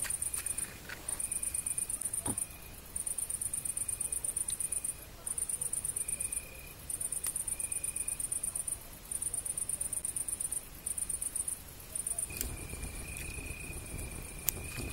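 Crickets chirping: high, rapidly pulsing trills in phrases of a second or two with short gaps between them, and a fainter, lower insect tone that comes and goes alongside.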